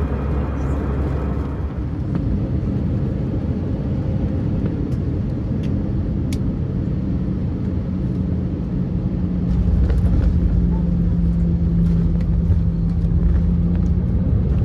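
Jet airliner cabin noise heard from a window seat: the steady rumble of the engines and airflow, with a steady low hum. The rumble grows louder about ten seconds in, with the aircraft on the ground.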